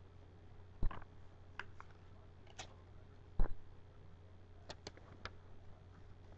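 A few scattered light clicks and two dull thumps, about a second in and midway through, over a steady low electrical hum.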